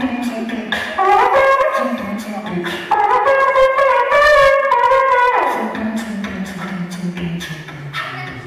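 Beatboxing into a handheld stage microphone, amplified through the PA: sharp percussive beat strokes under a sung melody line. The melody holds a long note around the middle, then glides down in pitch and fades over the last few seconds.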